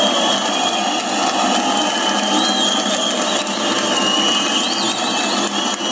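Large crowd applauding, with a few whistles rising and falling about halfway through and near the end.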